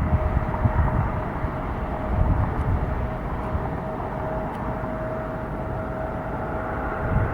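Jet aircraft engines running at the airport: a steady rumble with a thin, steady whine held on one pitch.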